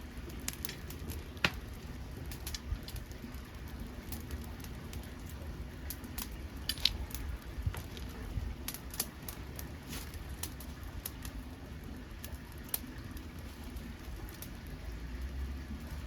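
Dead podocarpus wood burning in a homemade secondary-combustion wood-gas stove, crackling with scattered sharp pops over a low steady rumble.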